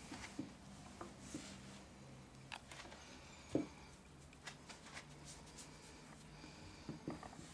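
Faint soft taps and rustling of bare feet and toes pressing into flour spread on a shaggy rug, with scattered light clicks and one louder thump about three and a half seconds in.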